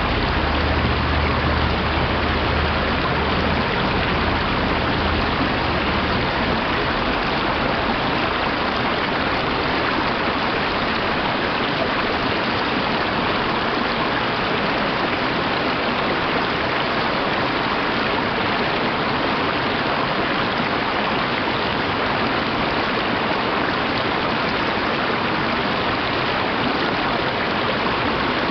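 Mountain stream rushing over rocks, a steady even wash of water. A low rumble underneath fades out over the first few seconds.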